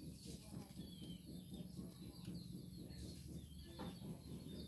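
Faint birds chirping now and then over a low steady hum.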